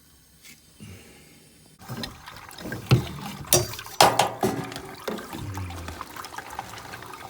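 Water splashing and trickling in plumbing, with several sharp knocks and clatter in its middle, as water is run to find a leak.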